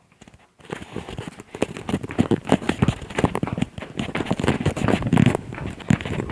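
Dogs' paws and claws clicking and pattering quickly and irregularly on a hard floor, starting about half a second in.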